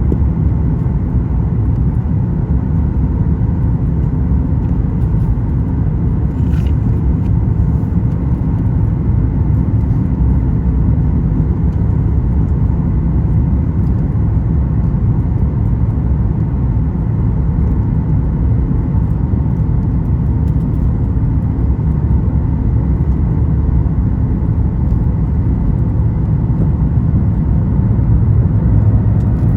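Steady cabin rumble inside a Boeing 737 MAX 9 airliner, from engine and airflow noise, with faint steady tones above the rumble. A faint tick comes about six seconds in.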